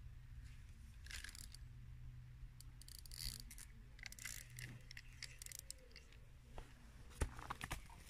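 Fishing rod and reel being picked up and handled close by: irregular light clicks and rustles, with a few sharper knocks near the end.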